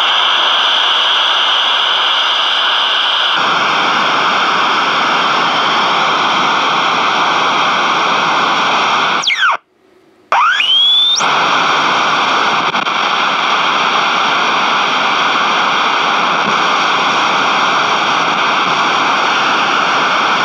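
GE P726 AM transistor radio's speaker putting out loud, steady static hiss with no station coming in. About halfway it cuts out for under a second, with whistles sliding in pitch as it drops out and returns. The converter stage is not pulling in a station with the substitute oscillator transistor fitted, which the repairer says it didn't like.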